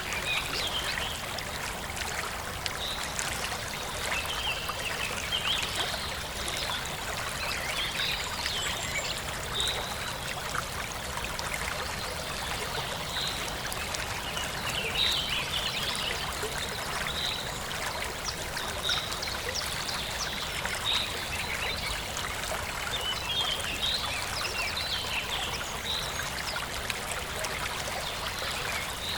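Forest stream trickling steadily, with birds chirping over it in short calls repeated every second or two.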